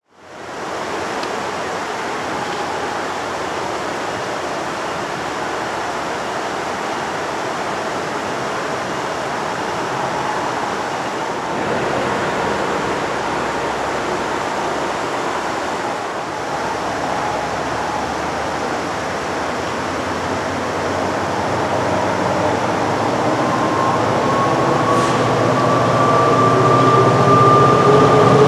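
An NJ Transit Alstom PL42AC diesel passenger locomotive and its train approaching: a steady rushing noise that grows louder over the last several seconds, with whining tones that rise slowly in pitch near the end.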